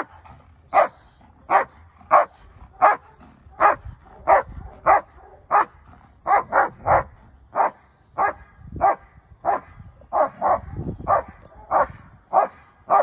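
Black German Shepherd protection dog barking repeatedly at a steady pace of about one and a half barks a second. It is guarding its handler against an approaching decoy.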